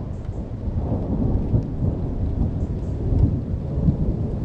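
Thunder rumbling on without a break, low and rolling, with faint rain ticks over it.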